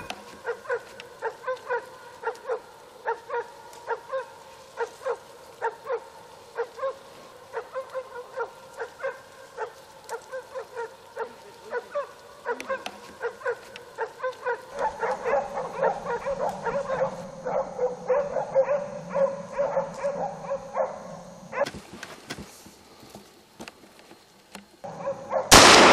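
Hunting dogs barking on the trail of wild boar, about two barks a second, with several dogs overlapping from about fifteen seconds in. The barking stops a few seconds before the end, and a single loud rifle shot goes off at the very end.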